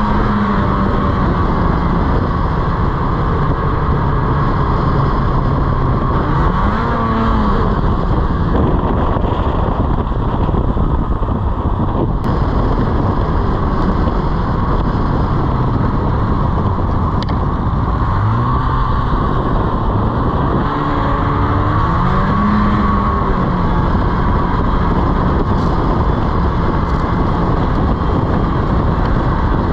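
Snowmobile engine running under way, its pitch rising and falling a few times as the throttle is opened and eased off, over a steady rushing noise.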